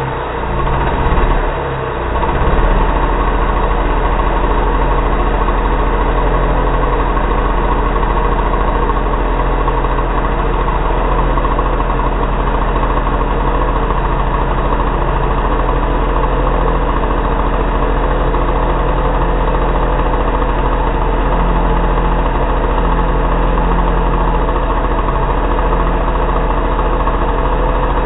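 Timberpro two-stroke petrol chainsaw with a 20-inch bar idling steadily, after two brief swells in loudness in the first couple of seconds; the chain is not yet cutting.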